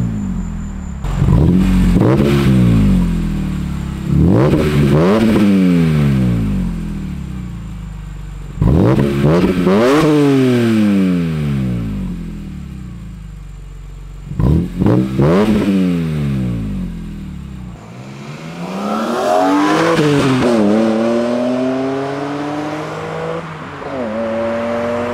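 BMW E46 M3's S54 straight-six through a Rogue Engineering El Diablo exhaust, blipped several times. Each rev climbs quickly and falls away more slowly. In the last few seconds the engine pulls under load, its pitch rising steadily and dropping briefly at gear changes.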